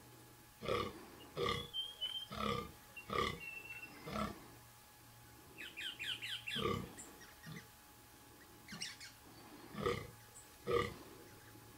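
Fallow deer buck groaning in the rut: a run of five short, low groans under a second apart, then a single one, then two more near the end. A small bird chirps and trills between the groans.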